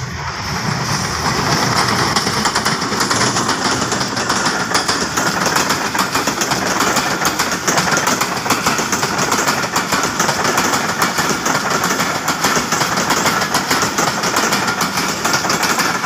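Diesel-hauled passenger train passing close by: a loud, steady rush of wheels and coaches rattling over the rails, building over the first couple of seconds and then holding.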